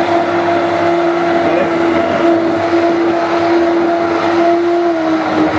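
Electric hand blender running steadily, its blade whizzing through soft cooked pumpkin to purée it. The motor holds one steady whine, dipping slightly in pitch near the end.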